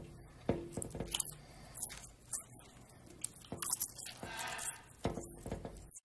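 A macaw picking up and cracking seeds with its beak: irregular sharp clicks and crunches, some in quick pairs.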